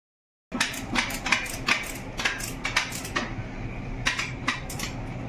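Irregular sharp clicks and clinks, about ten in quick uneven succession and then a few more near the end, over a steady low hum.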